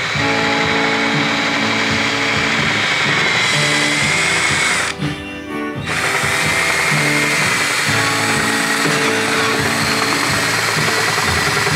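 Small electric drill running with a steady high whine as it bores into wood, stopping for about a second around five seconds in, then running again. Background music plays underneath.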